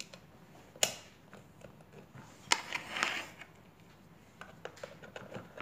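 Hard plastic Potato Head toy parts clicking and knocking as they are handled and pushed into place, with a sharp click about a second in, a short run of clicks and rustle around the middle, and lighter clicks near the end.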